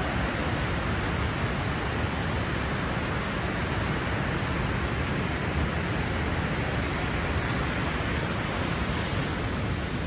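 Steady rushing noise, even and unbroken, with no distinct calls, knocks or other events.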